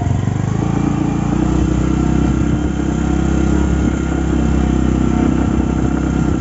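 Motorcycle engine running steadily, heard from the bike as it is ridden, with a small change in engine note about a second in.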